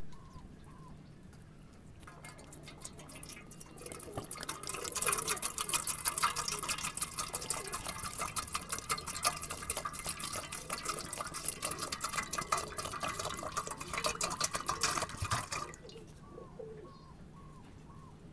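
Water splashing and dripping in a dense run of small splashes from about four seconds in until about sixteen, with soft short peeping calls of chickens before and after.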